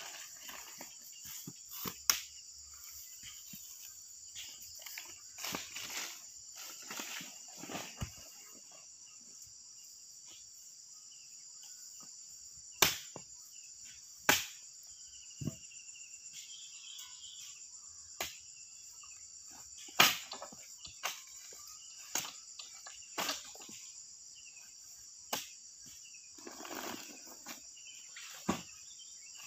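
A steady high insect chorus runs under footsteps and rustling through grass for the first several seconds. After that come sharp knocks and thuds every few seconds as oil palm fruit bunches are handled and stacked on a motorbike's cargo rack.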